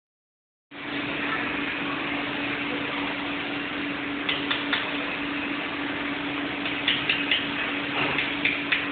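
Steady hiss with a constant low hum and a few short clicks scattered through the second half.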